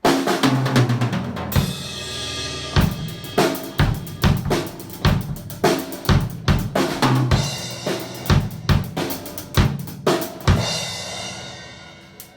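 A drum kit played by a beginner of about a week: a steady beat of bass drum and snare hits under ringing cymbals, with the cymbal wash dying away near the end.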